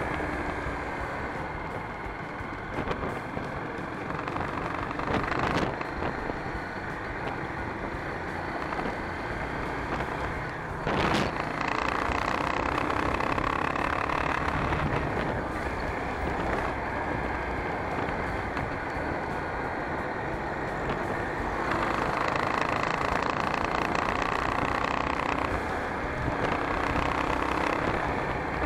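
Riding noise of a motorcycle in traffic, picked up by a handlebar-mounted camera: steady engine, wind and road noise, with a brief sharp noise about eleven seconds in.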